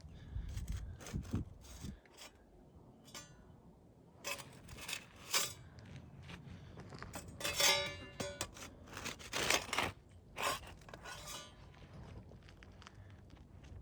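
Metal roofing scraper worked under asphalt shingles to break their tar seal strips: a series of irregular short scrapes and crackles with light metallic clinks, the loudest a little before halfway and around two-thirds of the way through.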